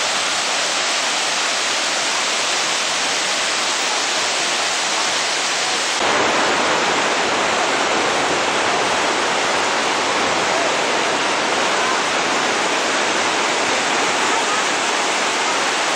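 Swollen river in flood rushing over rocks and small falls: a steady roar of water. About six seconds in it turns a little louder and deeper.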